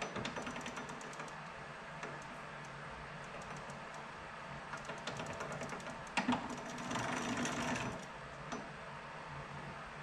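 Metal parts and hand tools being worked on an upturned snowblower's friction-disc drive: quick runs of clicking and rattling. About six seconds in comes a louder knock, then nearly two seconds of busier metal rattling.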